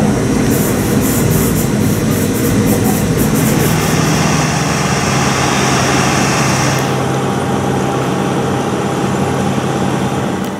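Turboprop airliner engines running, a loud steady drone with a high hiss on top that eases off about seven seconds in.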